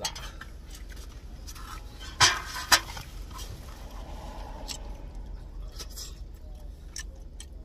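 Eating utensils handled over a foil takeout tray: two sharp clicks about half a second apart a little over two seconds in, then a few lighter ticks, over a steady low hum.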